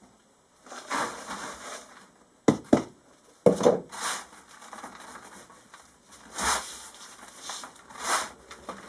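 Hands rubbing and pressing damp moulding sand across a metal tray: gritty scraping swishes about once a second, with three sharp knocks a few seconds in, the loudest sounds.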